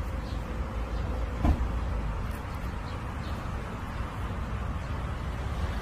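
Steady low outdoor rumble, like distant traffic or wind on the microphone, with a single brief knock about one and a half seconds in.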